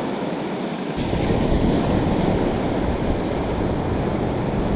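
Ocean surf washing on a beach, with wind buffeting the microphone; the low wind rumble picks up about a second in.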